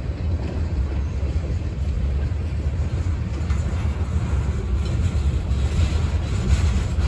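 Freight train's tank cars and covered hopper cars rolling past: a steady low rumble of steel wheels on the rails.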